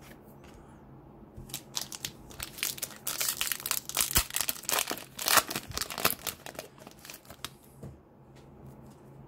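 Foil wrapper of a trading card pack being torn open and crinkled by hand. The crackling starts about a second and a half in, is thickest in the middle and dies away well before the end.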